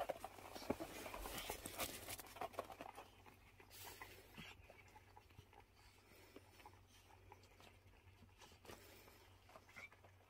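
Bichon Frise puppy eating from a ceramic bowl: faint, quick clicks and crunches of its mouth in the food and against the bowl, busiest in the first few seconds and sparser after.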